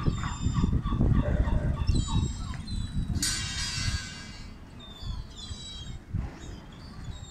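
Gulls calling: a series of thin, high whistling calls, some gliding in pitch, with one loud harsh call about three seconds in, over a low rumble that fades after about four seconds.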